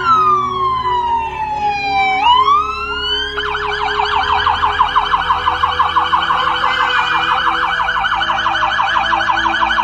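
Police car siren: a slow wail that falls and then rises, switching about three seconds in to a fast, rapidly repeating yelp.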